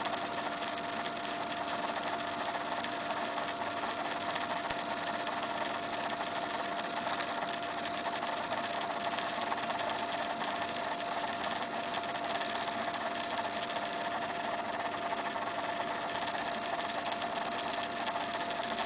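A small motor running steadily: an even hum and hiss with a constant whine that does not change.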